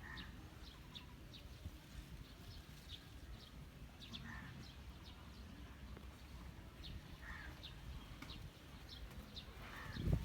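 Flock of month-old chicks peeping: many short, high peeps scattered throughout, with a few lower, longer calls every few seconds.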